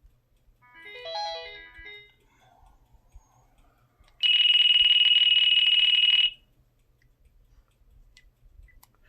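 Kyocera Blade cell phone playing ringtone previews through its speaker: a short melody of quick electronic notes, then about two seconds later a loud, shrill electronic trill held for about two seconds.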